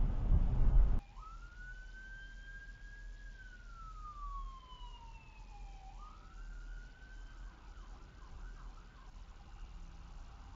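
Emergency vehicle siren in a slow wail: it rises, holds, falls gradually and rises again, then warbles faster near the end. In the first second, the low road rumble of a moving car cuts off abruptly.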